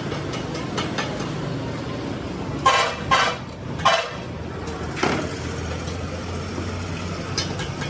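A vehicle engine running steadily, with a few short horn toots about three and four seconds in.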